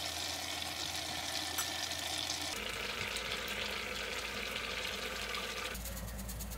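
Spicy soft-tofu stew with thin-sliced pork belly simmering in a pan, a steady sizzling hiss. Near the end, frozen garlic cloves scraped on a metal grater in quick, regular strokes.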